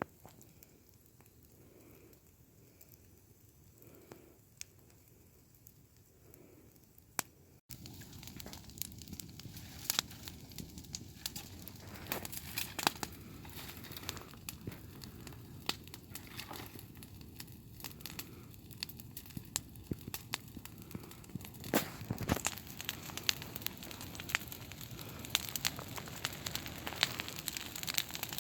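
Dying campfire crackling, with irregular sharp pops and snaps. Quiet at first, then louder and denser crackling from about eight seconds in.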